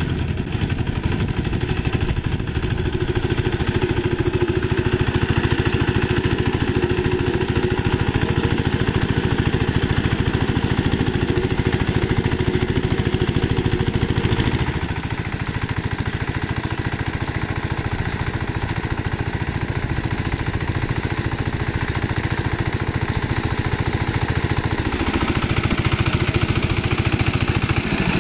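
Single-cylinder diesel engine of a two-wheel hand tractor running steadily while working a flooded paddy, a fast, even chug of firing pulses. It drops slightly in level about halfway through.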